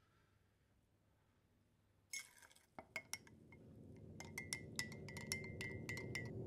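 A spoon stirring crushed sleeping pills in a glass mug: a short rustle about two seconds in, a few separate clinks, then quick repeated clinks against the glass with a ringing tone. A low drone of music swells underneath from about three seconds on.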